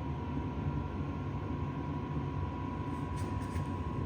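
LF Bros N2 diesel heater running steadily just after ignition: an even burner-and-fan rumble with hiss, and a thin constant whine above it.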